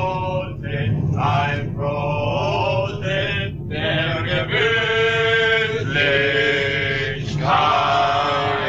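A group of men singing a song together, with some long held notes.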